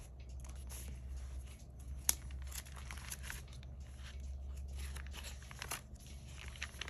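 Paper pages of a thick planner, stuffed with pasted photos and washi tape, being turned by hand one after another: a run of rustles and flaps, with one sharp tap about two seconds in.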